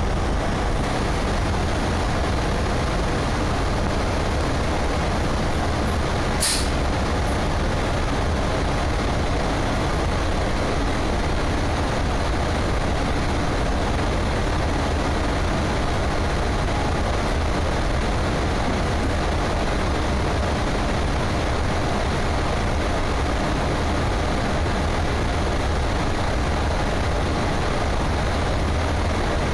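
Cabin noise of a CityRail OSCAR electric intercity train running along the line: a steady low rumble of wheels on track. About six and a half seconds in there is one brief, sharp high-pitched sound.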